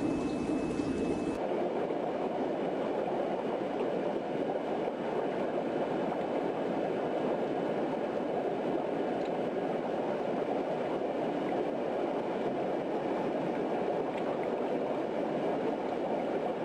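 Aquarium water bubbling and rushing steadily, the running sound of a tank's filtration and aeration.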